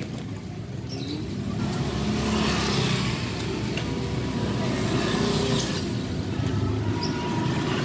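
Street traffic: vehicle engines running past, swelling and fading twice.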